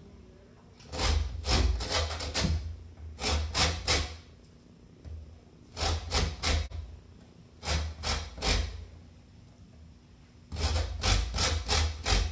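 A lemon being zested on the fine side of a metal box grater: quick scraping downward strokes in five bursts of three to six, with short pauses between.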